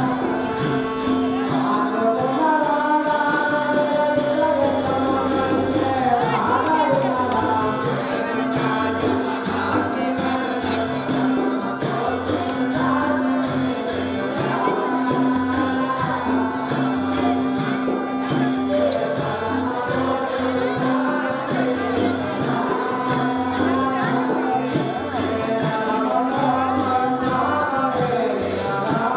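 Live folk-drama music: a harmonium holding a steady drone, a voice singing a bending melody over it, and a fast, steady percussion beat.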